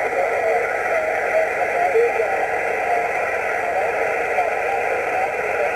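Yaesu HF transceiver on the 20-metre band receiving through its speaker: a steady hiss of band noise, with a faint, garbled single-sideband voice warbling under the static.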